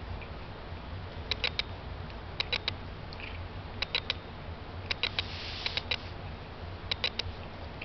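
Sharp clicks in quick groups of two or three, repeating about once a second, over a steady low hum.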